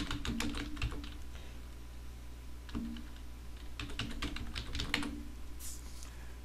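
Typing on a computer keyboard: quick bursts of key clicks with short pauses between them, then one last single click about five and a half seconds in.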